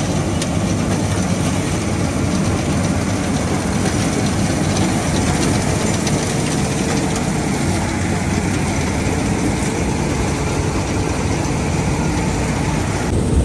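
Preet 987 combine harvester running steadily at close range while it cuts standing paddy: a loud, even mechanical noise of engine and harvesting machinery with no letup.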